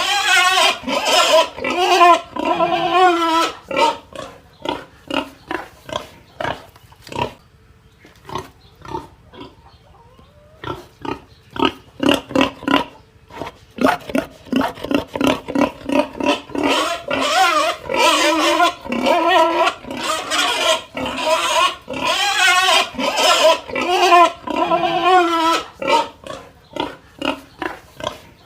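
A pig grunting in quick short grunts and squealing in longer, high, wavering cries, with a lull of a few seconds near the middle.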